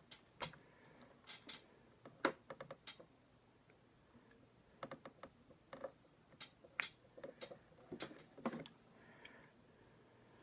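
Irregular faint clicks and taps of small wires and hand tools being handled while wires are stripped, in short clusters.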